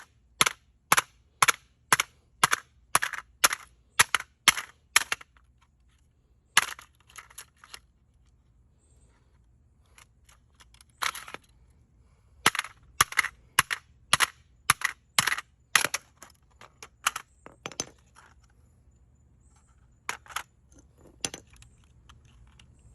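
Repeated hard blows on a smoke alarm's plastic casing as it is being smashed. The sharp cracks come about two a second in runs: a steady run at first, a few lighter hits, a pause, then a second run and scattered blows near the end.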